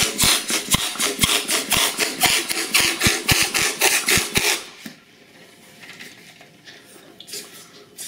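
Hand balloon pump inflating a 12-inch latex balloon: quick, rhythmic strokes of rushing air that stop about four and a half seconds in, followed by faint handling of the pump and balloon.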